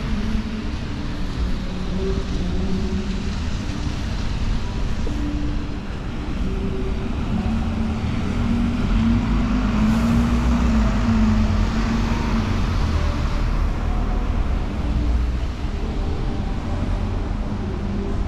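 Road traffic: a steady low rumble of vehicle engines. A louder vehicle passes about eight to thirteen seconds in.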